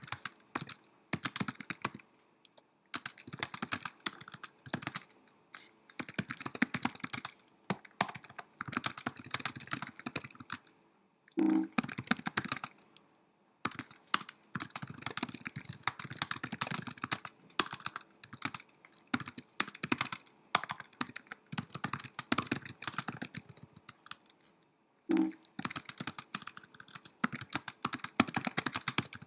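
Typing on a Mac laptop keyboard: quick key clicks in runs, broken by short pauses. A heavier thump sounds twice, once about a third of the way in and again near the end.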